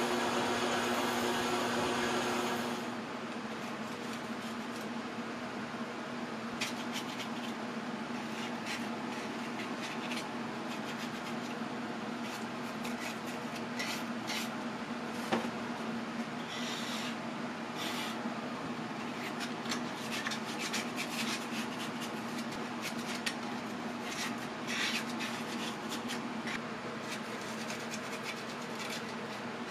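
Steady hum of a running lathe, louder for the first few seconds, with irregular scraping strokes as chemically softened paint is scraped off the steel shaft.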